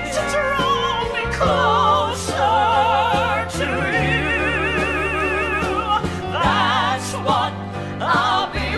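Southern gospel recording: voices singing held notes with wide vibrato over a band with steady bass notes.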